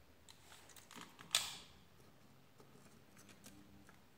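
Small handling sounds: faint rustles and light clicks as a wire and a circuit board are handled and positioned for soldering, with one sharper click about a second and a half in.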